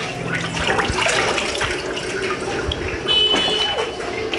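Water splashing and sloshing as hands wash raw whole chickens in a tub of water. A brief high-pitched tone cuts in about three seconds in and is the loudest sound.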